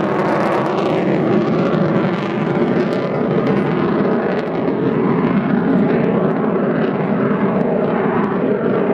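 Avro Vulcan delta-wing jet bomber flying overhead, its four Olympus jet engines making a loud, steady noise.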